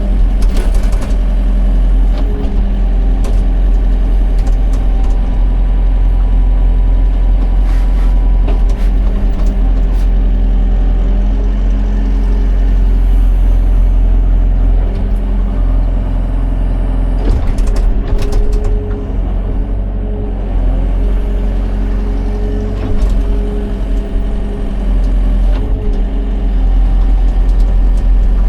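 Excavator engine running steadily, its pitch shifting a little as the machine works, with scattered sharp metallic clicks and knocks, a cluster of them a little past the middle.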